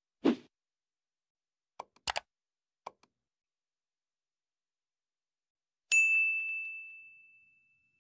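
A single bright bell ding rings out about six seconds in and fades away over a second and a half. Earlier there is a soft pop near the start and a few quick clicks.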